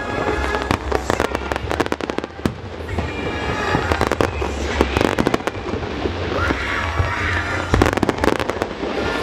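Aerial fireworks bursting in a dense barrage, many sharp bangs and crackles in quick succession, over the show's accompanying music.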